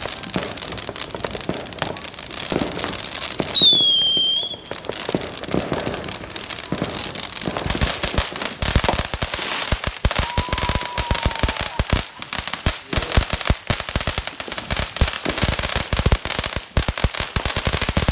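A World Class Fireworks 'Call Me By' 200-gram fountain spraying sparks with a steady hiss. About three and a half seconds in, a loud whistle sounds for about a second, sagging slightly in pitch; from about eight seconds on the spray is full of dense crackling.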